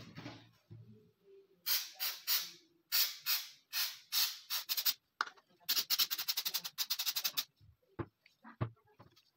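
Rubbing or scrubbing strokes on the rusty 30 bore TT pistol's metal, first in slow groups of a few, then a fast even run of about nine strokes a second. Two low knocks follow near the end.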